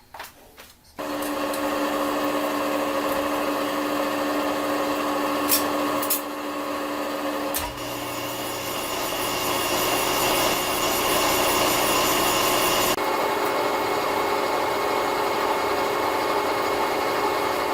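A machine tool cutting under load: a loud, steady grinding noise with whining tones. It starts about a second in and shifts in pitch twice.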